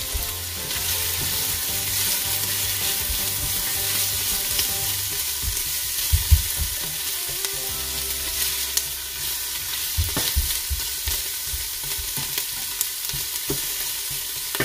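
Sliced onions, ginger and lemongrass sizzling in olive oil in a stainless steel pot over low heat, stirred with a wooden spoon that scrapes and knocks against the pot, the loudest knocks about six seconds in.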